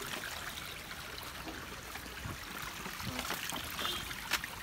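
Footsteps of a person walking on a concrete path, faint scattered scuffs and clicks over a steady background hiss, with one sharper click about four seconds in.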